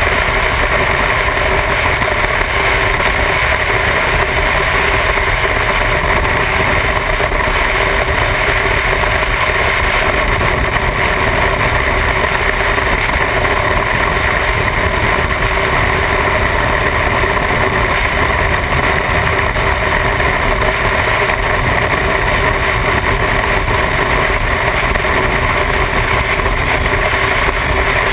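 Motorcycle engine running steadily at highway cruising speed, mixed with constant wind rush, heard from the rider's seat.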